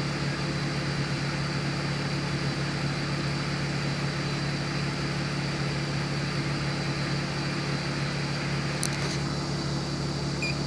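BMW 330Ci's inline-six engine idling steadily while warming up. A brief click comes about nine seconds in.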